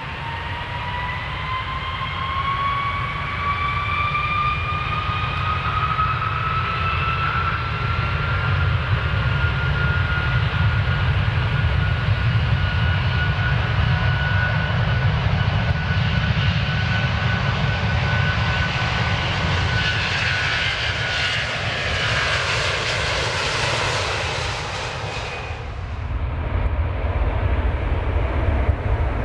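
Airplane taking off: its engines whine, rising in pitch over the first several seconds and then holding, over a steady low rumble. A loud hiss builds toward the end and cuts away suddenly about 25 seconds in, leaving the rumble.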